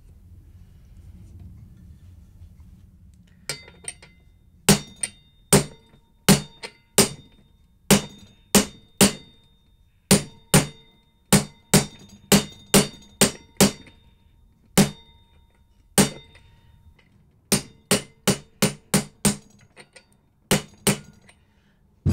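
A hammer strikes a steel socket set on a new wheel bearing in a Suzuki Bandit 650's front wheel hub, tapping the bearing into its seat. About three and a half seconds in, about thirty sharp metallic blows begin in uneven runs of one to three a second, each with a short ringing tone.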